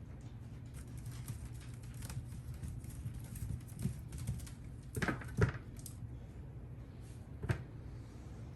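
Potatoes being handled and set down for weighing: a run of light clicks and rustles, with a few louder knocks about five seconds in and another sharp knock near seven and a half seconds.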